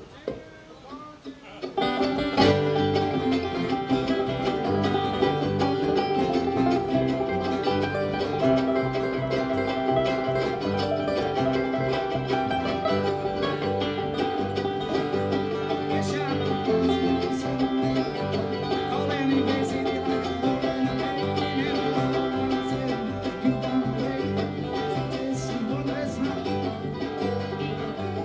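Bluegrass band with banjo and guitar starting a song: after a quiet moment, the band comes in together about two seconds in and plays an up-tempo instrumental introduction.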